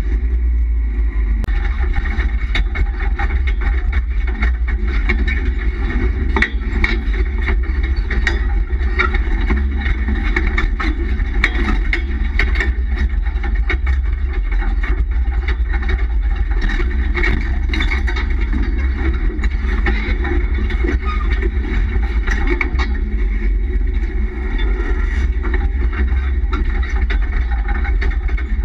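4x4 driving slowly over rough dirt, heard from inside the cab: a steady low engine and road rumble with frequent short rattles and knocks from the body and interior as it rides over bumps.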